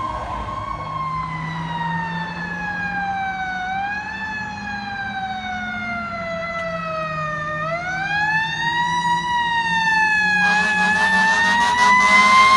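Fire truck's mechanical Q siren winding down slowly. It is given a short spin-up about four seconds in and a stronger one about eight seconds in, then spun up again so its pitch climbs near the end. A low steady engine hum runs underneath.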